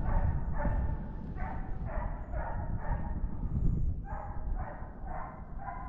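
Coyote hounds barking on a track, about two barks a second with a short pause midway, over a low wind rumble on the microphone.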